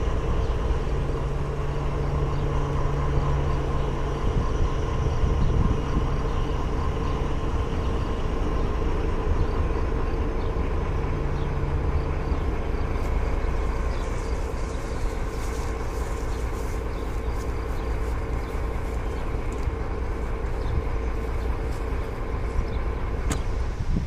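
MÁV M41 'Csörgő' diesel-hydraulic locomotive running steadily as it hauls a slow work train of flat wagons, its engine drone carrying a steady whine. Light clicking comes in over the second half.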